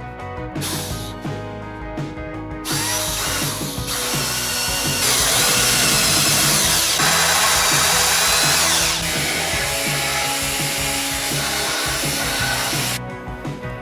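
Electric drill running over background music. It starts about three seconds in, runs loudest in the middle and stops about a second before the end.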